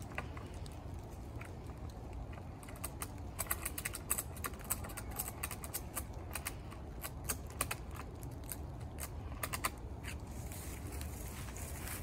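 Ratchet strap being cranked tight around a beehive: groups of quick, sharp ratchet clicks over a low, steady background rumble.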